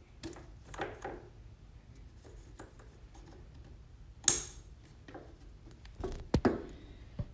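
Scattered light clicks and knocks, with one sharp, loud clank about four seconds in and a few more knocks near the end.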